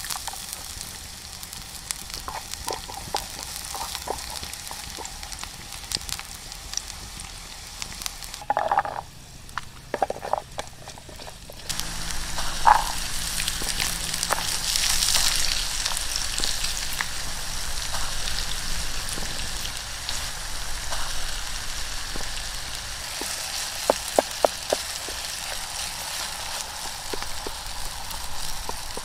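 Food sizzling in hot oil in a pan, louder from about twelve seconds in, with occasional taps and scrapes of a wooden spatula stirring.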